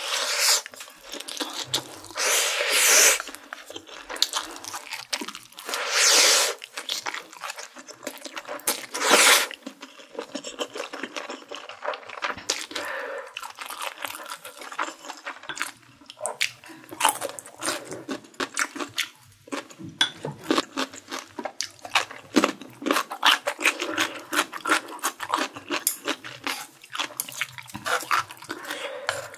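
Slurping stir-fried cheese Buldak noodles, four loud slurps in the first ten seconds, then steady wet chewing with many small clicks.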